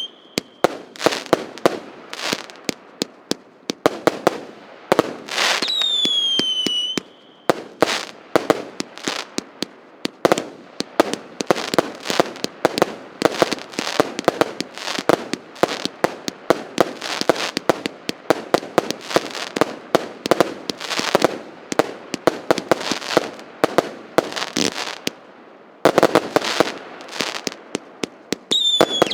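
Consumer fireworks battery (a multi-shot cake) firing: a rapid, continuous run of bangs and crackling. Between about 5 and 7 s, and again near the end, there are loud spells with a high whistling tone that slides slightly down.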